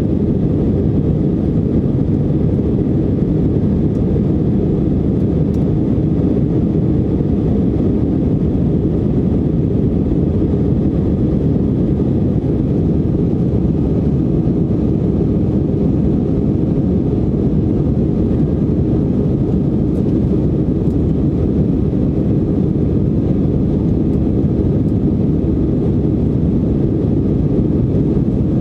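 Airbus A319 cabin noise in the climb after takeoff: engine and airflow noise heard from a window seat, a steady low rumble.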